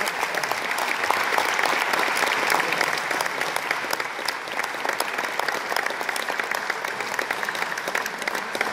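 An audience applauding, a steady dense clapping of many hands that thins slightly near the end.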